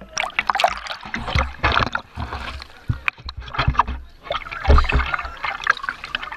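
Pool water splashing and sloshing close by, with gurgling and irregular splashes as the water churns around a swimmer at the surface. Low watery thumps come about a second and a half in and again near the end.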